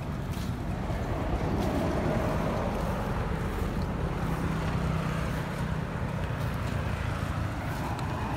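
Steady low engine rumble, with a low hum that holds for about a second and a half midway.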